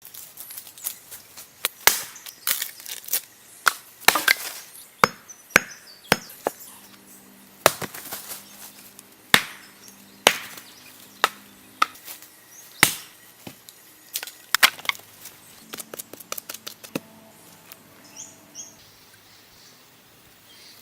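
Sharp, irregular chopping knocks of a stone tool striking, about one or two a second, growing sparser and quieter near the end.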